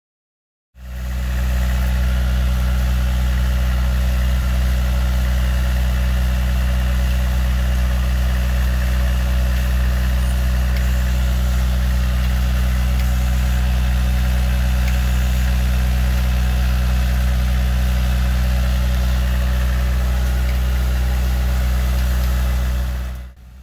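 High-clearance tractor engine running at a steady speed as the machine drives along crop rows, close to the microphone. It starts abruptly about a second in and cuts off just before the end.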